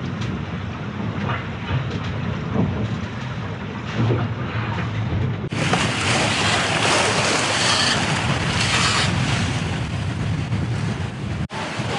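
Sea water rushing and sloshing along a Leopard 45 catamaran's hull, heard muffled from inside the leeward aft cabin. About five and a half seconds in it cuts to louder, brighter wind and breaking waves out on deck, with wind on the microphone.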